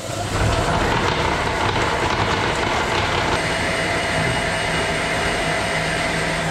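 Bosch Cookit kitchen machine running its universal knife at speed to chop and mix a stiff mass of dates, peanut butter, oats, cocoa and linseed. It is a loud, steady motor whir with chopping noise, starting a moment in.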